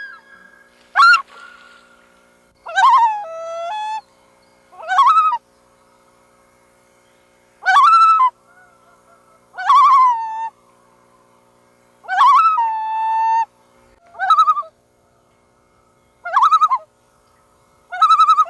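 Common loon calling: nine short, wavering calls with a rise and fall in pitch, spaced every second or two, two of them ending on a held lower note.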